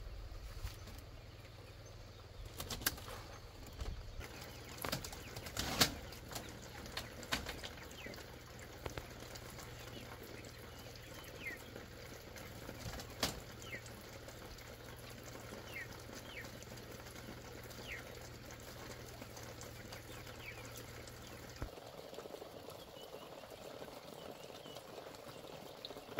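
Woven bamboo panels knocking and rustling as they are handled, with several sharp knocks in the first few seconds. A few short bird chirps come in the middle.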